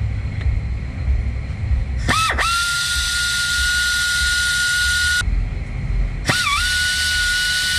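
90-degree pneumatic angle drill with a 1/8-inch bit drilling out a broken exhaust manifold bolt through a guide fixture, running in two bursts over a steady low rumble. Each burst is a high, steady whine with air hiss whose pitch dips briefly as it spins up. The first starts about two seconds in and lasts about three seconds; the second starts about a second later and runs on.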